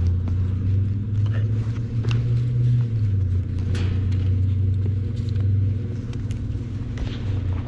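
Packaged heat pump unit running in heat mode, giving a steady low electric hum with a shift in pitch partway through. Light clicks and rustles of hands handling small wire connectors are heard over it.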